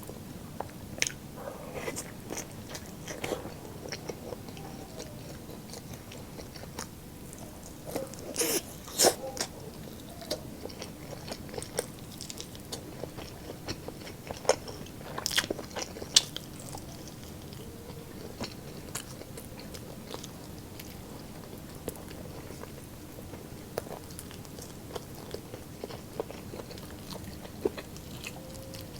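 Close-miked eating of lechon pork ribs and chicken: irregular chewing with sharp crunchy bites, the loudest about a third of the way in and again past the middle, over a faint steady hum.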